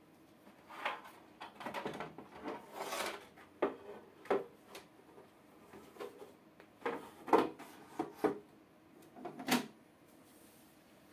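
Plastic aquarium lid being handled and fitted onto the glass tank: a string of irregular knocks, clunks and scrapes, the loudest about seven and nine and a half seconds in.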